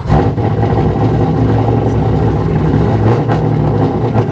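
LS3 V8 engine in a Subaru BRZ catching as it is started, then running at a loud, steady idle.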